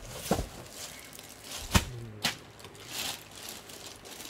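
Clear plastic garment bag rustling and crinkling as a bagged jacket is handled, with a few sharp clicks and taps in the first half.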